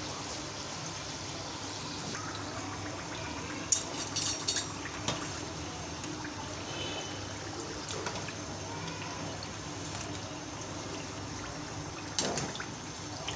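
Samosas deep-frying in hot oil, a steady sizzle and bubble. Metal clinks and scrapes of a wire skimmer and spoon against the pan come about four seconds in and again near the end.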